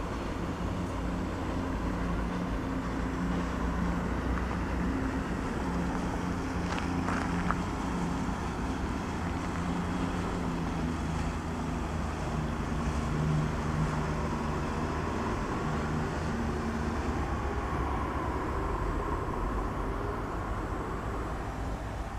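A distant engine drone, its pitch wavering slightly, over a steady low rumble of wind.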